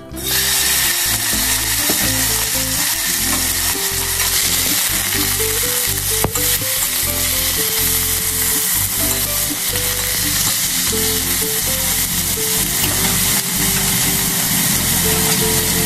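Raw chicken pieces sizzling loudly in a hot pot, starting the instant they are tipped in and holding steady while chopsticks stir them. There is one sharp tap about six seconds in.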